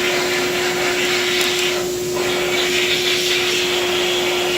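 Power tool running steadily as it touches up the rusty centering-pin hole on the axle so the leveling kit's centering pin will seat: a constant whine over hiss, easing briefly about two seconds in.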